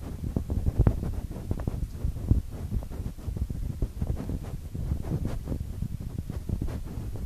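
Wind buffeting the microphone: a low, uneven rumble with frequent short gusty bumps.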